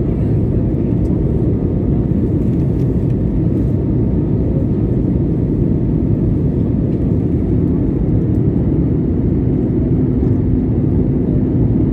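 Steady, loud cabin noise of an airliner in flight: an even low rumble of the jet engines and rushing air. A faint steady hum joins it near the end.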